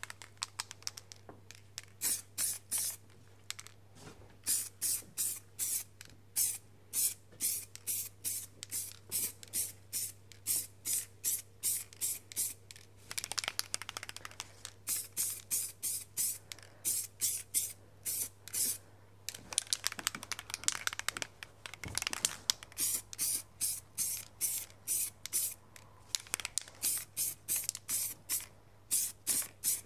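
Aerosol can of primer spraying in quick short bursts, one to two a second, with a few longer passes, as a thick coat is laid onto an alloy wheel. A steady low hum runs underneath.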